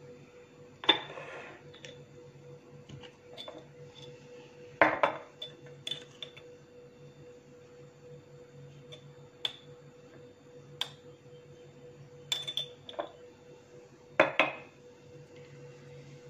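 A steel spoon clinking and scraping against dishes as salt is scooped and sprinkled into the pot: a string of sharp metallic clinks at irregular intervals, the loudest about a second in, about five seconds in and near the end.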